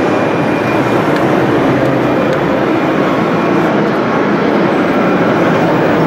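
Steady, even din of a busy indoor exhibition hall: a dense murmur of many visitors with no single event standing out.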